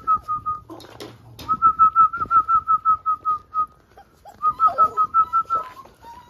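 Quick runs of short whistled notes at one steady pitch, about five a second. There are three runs, broken by pauses of about a second, and the last ends on a lower falling note.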